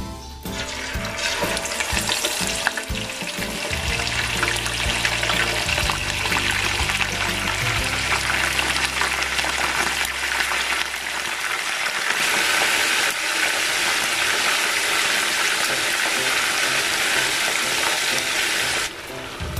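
Marinated pork pieces sizzling and crackling as they fry in hot oil in a pan, the sizzle starting about a second in as the first pieces go in and growing denser about twelve seconds in.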